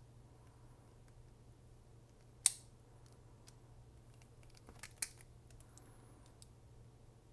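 Sharp clicks from the action of a partly disassembled Smith & Wesson 642 J-frame revolver as it is handled to get the hammer out: one loud click about two and a half seconds in, a few smaller ones about five seconds in, and a faint one near the end.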